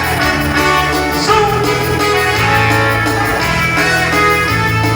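Live dance band playing a waltz: an instrumental passage with a melody over held bass notes.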